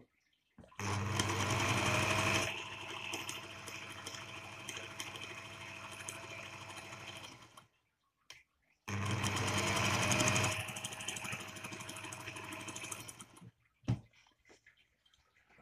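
Singer 201K electric sewing machine stitching through leather in two runs with a short pause between. Each run is loudest for its first second or two, then goes on quieter and steady. A single sharp click comes near the end.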